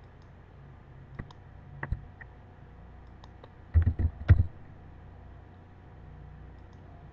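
Computer keyboard and mouse clicks: two separate clicks in the first two seconds, then a quick run of keystrokes about four seconds in as a short word is typed.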